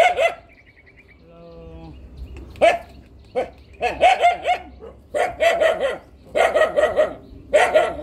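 Dog barking repeatedly in quick runs of three or four barks, with short pauses between the runs.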